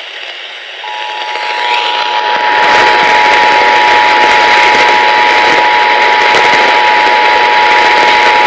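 Emergency Alert System two-tone attention signal (853 Hz and 960 Hz sounded together), starting about a second in and holding steady, the alarm that heralds a warning message. Under it, FM radio reception hiss swells up and is loud and steady from about two seconds in.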